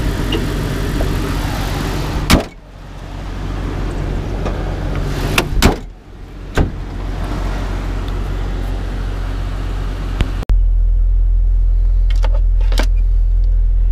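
A Jeep 4.0 inline-six idling steadily. About two seconds in a single loud slam comes as the hood is shut, and a few more knocks follow a few seconds later. Later the idle turns to a steadier, heavier low hum with a couple of light clicks.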